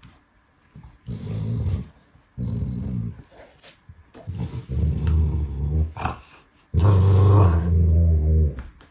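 A dog growling in four low bouts of a second or so each; the last bout is the longest and loudest.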